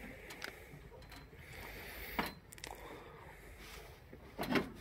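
Quiet, with faint rustling and a few soft knocks as a person climbs onto a tractor; the tractor's engine is not yet running.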